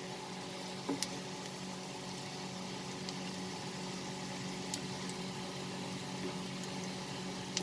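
Bread pieces frying in a pan, a steady sizzle over a constant low hum, with a few light clicks.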